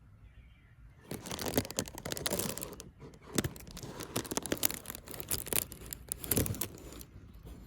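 Irregular rustling and crinkling with many small clicks and scratches, starting about a second in and easing off near the end.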